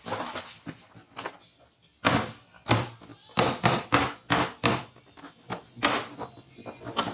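Irregular sharp knocks and clicks, about a dozen, with the loudest coming from about two seconds in: hand tools and parts being handled during scooter disassembly.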